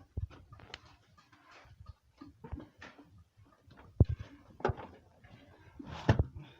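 Irregular knocks and thuds from building materials being handled and set down, the loudest about two-thirds of the way through and again near the end.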